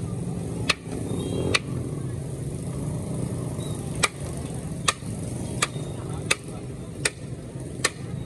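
A series of sharp knocks at a fairly even pace, about one every three-quarters of a second, over a steady low background rumble.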